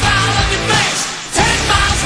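Rock song with sung vocals over a steady bass line; the music dips briefly about a second in and then comes back loud.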